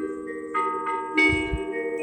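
Church bells ringing the noon peal: several bells struck one after another, three strikes in quick succession, their tones ringing on and overlapping.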